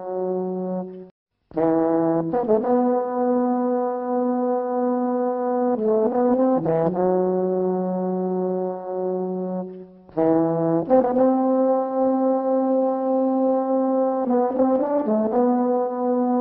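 Solo brass instrument playing a slow melody of long held notes linked by short quick runs, with a brief break about a second in.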